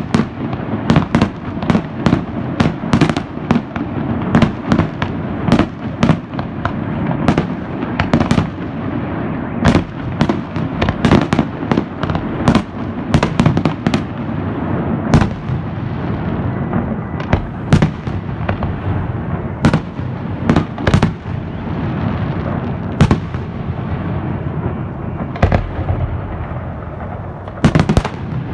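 Aerial fireworks bursting: many sharp bangs in quick succession, several a second at times, over a continuous low rumble of further explosions.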